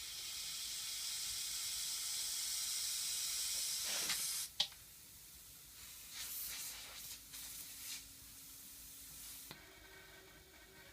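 Compressed air hissing from an air compressor's unloader valve, building for about four seconds and then cutting off suddenly with a click, followed by weaker, intermittent hissing. The air is still leaking past the rubber cap clamped over the valve outlet.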